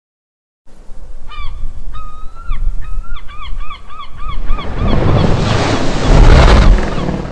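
Sea-surf sound effect with a bird honking: one long call, then a quick run of short calls. A deep rumble with rushing water swells under it, loudest near the end.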